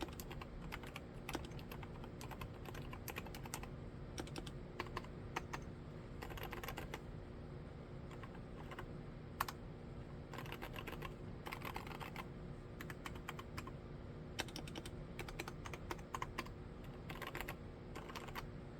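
Typing on an Akko MOD007 75% mechanical keyboard with mStone Silent Milky silent switches: irregular soft keystrokes with several quick flurries of keypresses.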